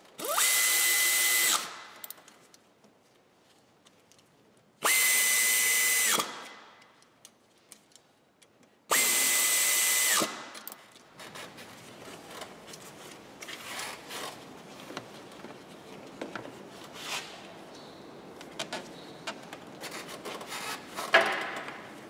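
An electric power driver runs in three short bursts of about a second each, its motor spinning up to a steady whine and then dropping off, as fasteners are run in at the exhaust joint on the turbocharger outlet. Quieter clicks and tool handling follow, with a sharp click near the end.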